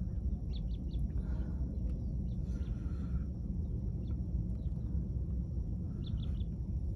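Birds chirping in a few short bursts over a steady low rumble of outdoor background noise.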